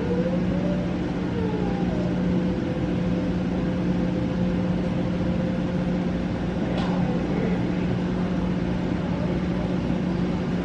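A steady machine hum with one constant low tone, and a single short click about seven seconds in.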